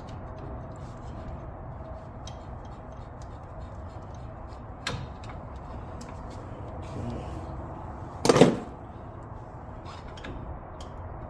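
Hand tools and metal parts being worked while a front brake caliper is unbolted: scattered small clicks, a knock about five seconds in, and one loud, short clank a little past eight seconds, over steady background noise.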